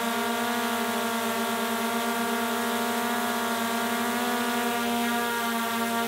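DJI Air 2S quadcopter hovering, its four propellers giving a steady multi-toned whine that holds level in pitch.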